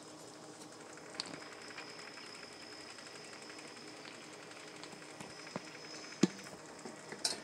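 Faint steady sizzling and bubbling of a just-baked turkey meatloaf in its hot pan, with a few light clicks and one sharper knock a little after six seconds in.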